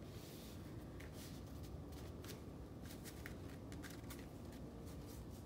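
Faint rustling and a few soft taps of cardstock being handled and pressed down by hand onto a paper layout, over a low steady background hiss.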